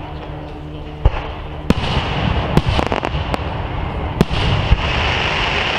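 Aerial fireworks shells going off in sharp bangs, about five at irregular spacing. From about two seconds in, a broad hiss rises under them.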